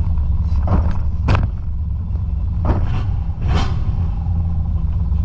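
Holden VN Calais engine running with a steady low drone on its first drive, with several brief rushes of noise over it in the first four seconds. It sounds unhealthy: the engine is misfiring and running so rich that it fouls its plugs.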